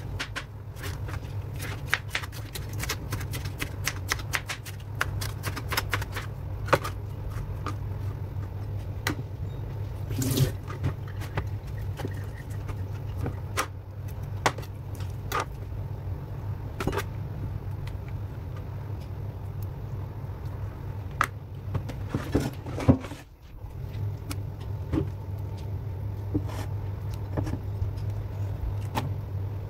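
Kitchen knife chopping red bell pepper on a plastic cutting board: a quick run of knocks over the first several seconds, then scattered knocks and taps as an avocado is cut and handled. A steady low hum runs underneath and cuts out briefly about two-thirds of the way through.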